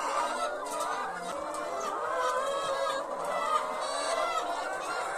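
A large flock of Novogen Brown and Tinted laying hens clucking, many calls overlapping in a steady, continuous chorus.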